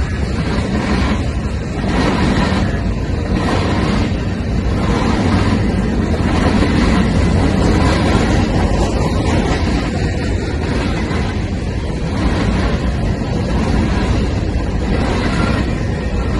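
Steady, loud rumbling vehicle noise, heaviest in the low end, with no distinct rhythm or single event.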